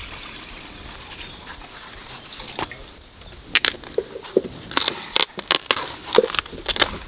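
Sheaths being cut and peeled off a fresh bamboo shoot: a run of crisp snaps and cracks, starting about halfway through.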